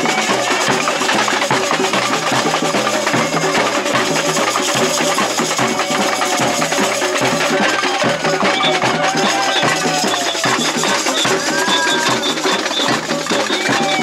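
Samba percussion ensemble (bateria) playing a loud, dense, driving rhythm on drums and hand percussion.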